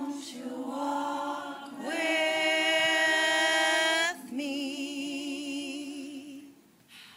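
Slow a cappella singing: a voice holds three long notes, the middle one the loudest and the last with a wide vibrato, then fades out near the end.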